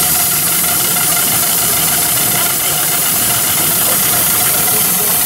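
2-inch scale Ransomes compound live-steam traction engine running under way, its steam hissing steadily along with the mechanical running of the engine.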